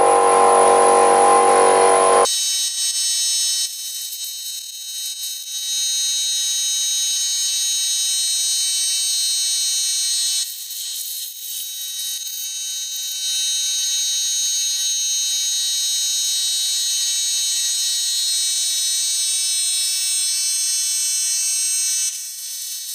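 Compressed-air blow gun blasting air over a cylinder head to clear metal filings: a loud, steady whistling hiss. It is lower-pitched for about the first two seconds, then higher, easing off briefly twice.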